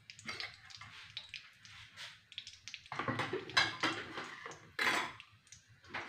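Metal kitchenware clattering around a metal kadai on the stove: a run of small clinks, with louder, busier clatter about three seconds in and another loud burst near five seconds.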